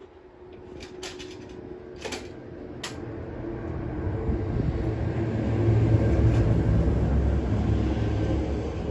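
Candy washing machine drum spinning up: a low rumble that grows steadily louder over about six seconds, with a steady motor hum above it. A few sharp knocks come in the first three seconds.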